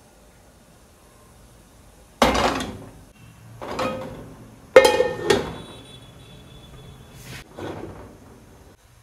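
Metal frying pan clattering against the gas stove's grate as it is handled: a few sharp knocks between about two and five and a half seconds in, one with a brief metallic ring, and a softer knock near the end.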